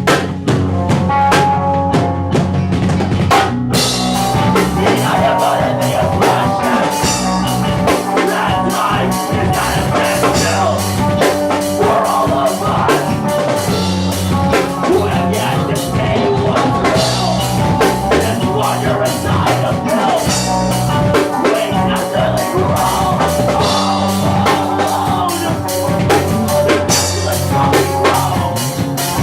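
Live rock band playing a song, with a drum kit's kick and snare driving a steady beat under sustained pitched instruments. About three and a half seconds in, the sound fills out and brightens in the high end.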